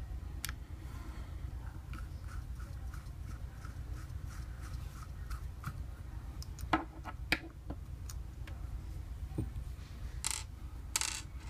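Small metallic clicks and taps from handling the parts of a 1911 pistol being taken apart, with two sharper clicks about two-thirds of the way in and two short scraping sounds near the end.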